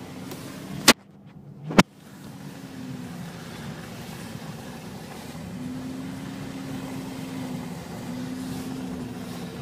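Car engine running steadily, heard from inside the cabin while driving, with a held engine tone over road noise. About a second in, two loud sharp clicks less than a second apart, with the sound cutting out almost entirely between them.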